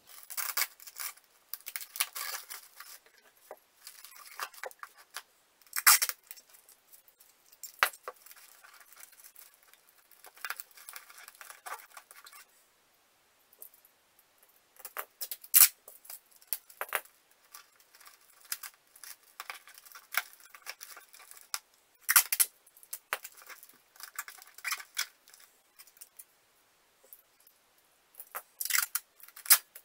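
Cardboard box and brown packing tape being handled: tape peeled off, with cardboard rustling, scraping and knocking. The clicks and scrapes come irregularly, with a few louder knocks and short pauses.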